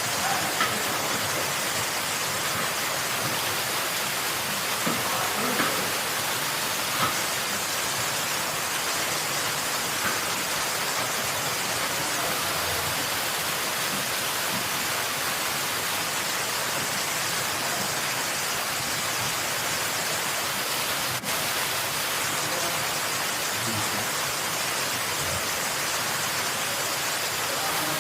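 Steady hiss of a gas brazing torch flame, with a few faint taps and a sharp click about 21 seconds in.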